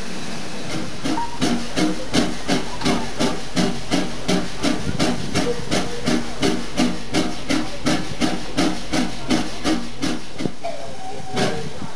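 Steam locomotive working, its exhaust chuffing steadily about three times a second with a hiss of steam, then the beats stop near the end.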